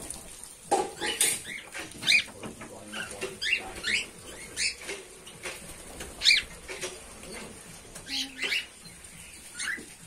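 Cockatiels chirping: short, squeaky rising-and-falling calls, one every half second or so, with a few light clicks and taps among them.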